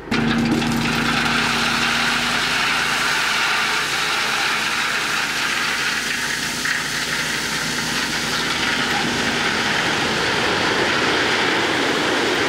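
Dump truck's engine suddenly running up to drive the hydraulic hoist as the bed tips, with a steady hum under it for the first few seconds. Crushed stone pours out past the tailgate in a continuous loud rush.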